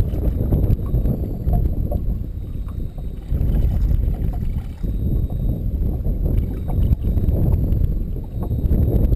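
Low, uneven rumble of wind buffeting the microphone, with a few faint knocks.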